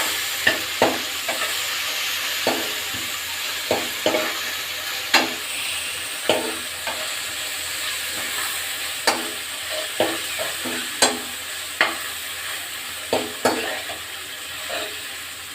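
Onion, green chilli and tomato mixture sizzling in hot oil in a pan while a spoon stirs it, with sharp knocks of the spoon against the pan about once a second.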